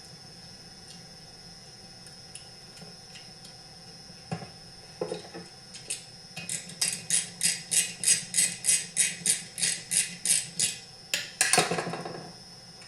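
Small metal parts and hand tools clicking on a workbench during chainsaw reassembly: a few scattered clicks, then a run of about sixteen evenly spaced sharp clicks, about four a second, ending in a louder jangle of metal near the end.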